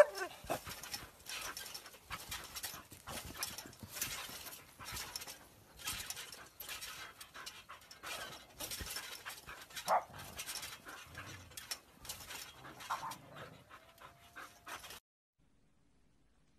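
A dog panting hard as it jumps on a trampoline, with uneven soft thumps from its landings and a brief whine near the end. The sound cuts off suddenly about fifteen seconds in.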